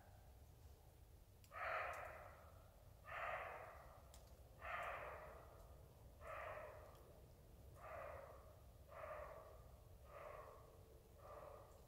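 Roe deer barking: a series of eight short, hoarse barks about a second and a half apart, coming a little quicker and growing fainter toward the end.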